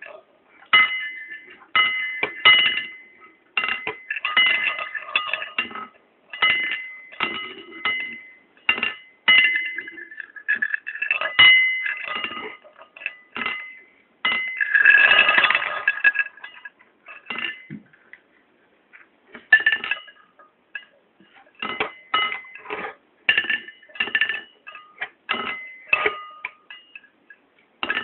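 Soybeans dropping onto a white ceramic plate and wooden chopsticks tapping the plates: a long, irregular string of sharp clinks, the plate ringing briefly after each. About halfway through comes a longer rattling clatter.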